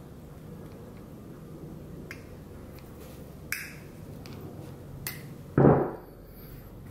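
Stiff single-strand leader wire handled and twisted by hand, giving a few small sharp metallic ticks. About five and a half seconds in there is one louder, short dull rustle or knock, the loudest sound here.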